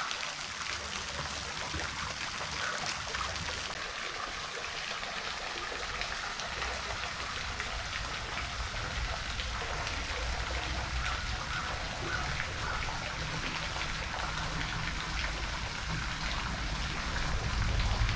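Steady fine pattering and trickling of water around the kayak. A low rumble grows louder near the end.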